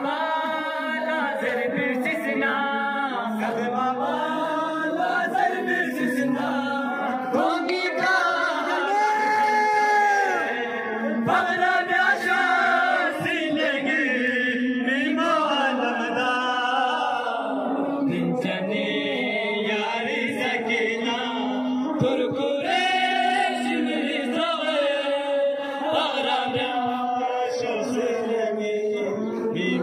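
A group of men chanting a noha, a Shia mourning lament, together into a microphone, amplified through a loudspeaker.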